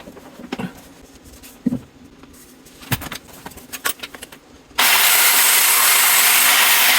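Light clicks and knocks of plumbing fittings being handled. About five seconds in, a loud, steady rushing hiss starts abruptly and cuts off after about two and a half seconds.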